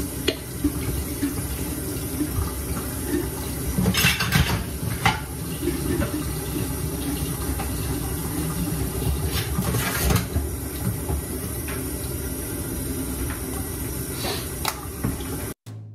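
Kitchen faucet running steadily into a steel sink, with a few brief knocks and clinks mixed in. The running water cuts off suddenly near the end.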